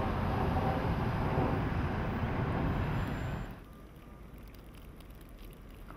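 Loud steady rushing of storm wind and street traffic, cutting off abruptly about three and a half seconds in to a much quieter hiss.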